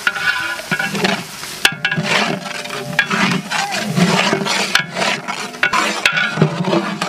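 A long metal ladle stirs and scrapes thick masala around a large aluminium cooking pot, in irregular strokes with knocks against the metal, while the paste fries and sizzles. The onion-tomato masala is frying down until it is ready for the crabs to go in.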